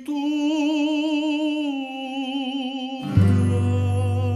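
Music: a singer holds one long note with vibrato in a serenade-style song. About three seconds in, a loud, low, steady note enters beneath the voices.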